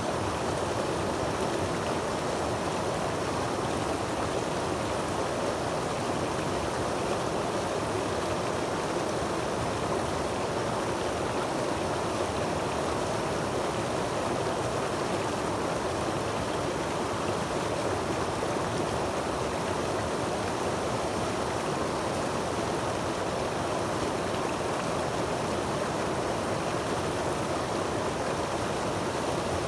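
Creek water tumbling over rocks in a small cascade into a shallow pool: a steady, even rush with no change throughout.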